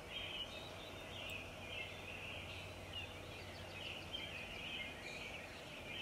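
Faint background birdsong: many small birds chirping continuously over a low, steady hum.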